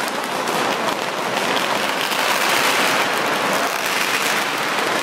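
A string of firecrackers going off in a dense, unbroken crackle of rapid bangs.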